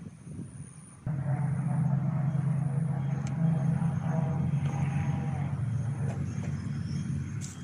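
An engine running with a steady low hum. It comes in abruptly about a second in, holds steady, and drops away near the end.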